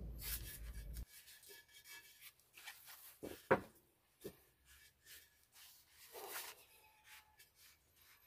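Faint rubbing and handling: hands moving over a terracotta clay pot and smoothing masking tape onto it, with one sharp tap about three and a half seconds in.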